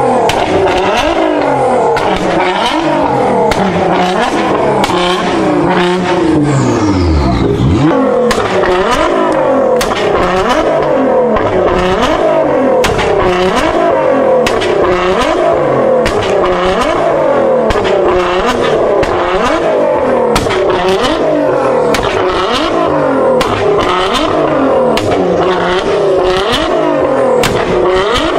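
High-performance car engine revved over and over, its pitch climbing and falling back about once a second. Sharp exhaust pops and bangs run through it: the crackle of ignition-cut 2-step or anti-lag.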